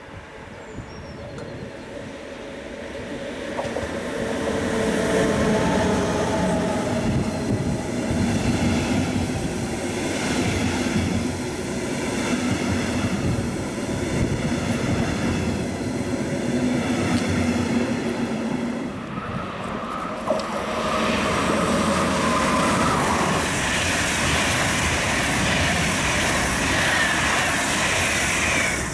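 DB Class 146 electric locomotive hauling double-deck regional coaches approaches and passes close by: a rumble building over the first few seconds, then a long steady run of wheels on rails with a steady electric motor whine. After a sudden change about two-thirds in, a DB InterCity train runs past with wheel and rail noise and a higher whine.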